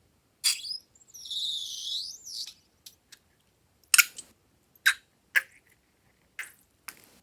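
Rubber balloon squealing in high, pitch-bending squeaks for a second or two. It is followed by a run of sharp clicks and snaps about once a second.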